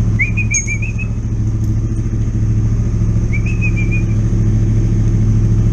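Motorcycle engine idling steadily at an even, low pitch.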